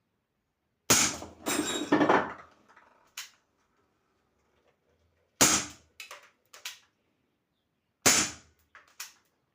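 CO2 revolver firing: a quick run of shots about a second in, then two single shots several seconds apart, each followed by a few light clicks.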